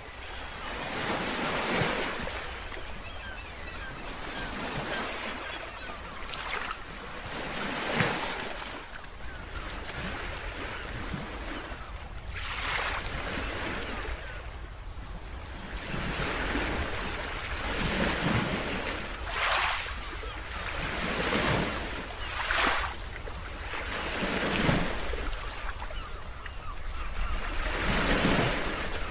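Ocean waves breaking and washing on a shore, surging every few seconds over a steady rush of surf, with low wind rumble on the microphone.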